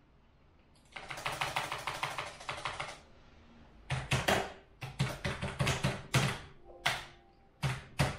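Typing on a computer keyboard: a fast run of keystrokes for about two seconds, then a dozen or so separate, heavier key taps spaced out through the rest.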